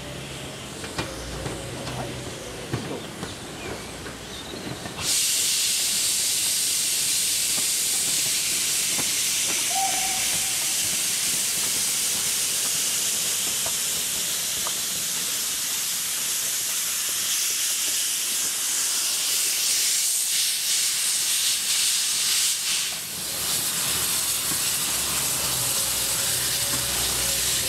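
Steam hissing from GWR 4575 class small prairie tank locomotive 5553, loud and steady once it starts abruptly about five seconds in. Before that there is a quieter hiss with a few knocks.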